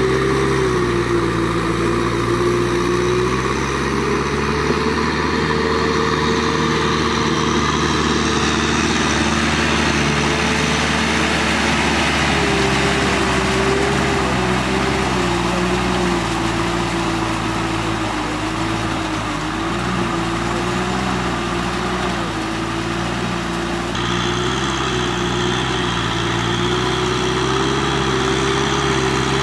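Kubota tractor's diesel engine running steadily under load as it drives a rotary tiller through flooded paddy mud, its pitch wavering slightly up and down.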